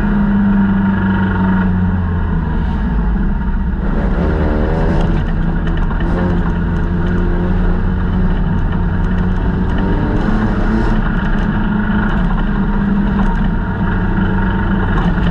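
Folkrace car's engine running hard under load, heard from inside the stripped cabin during a race heat, with its pitch wavering briefly about four seconds in. Scattered clicks and rattles come through over the engine.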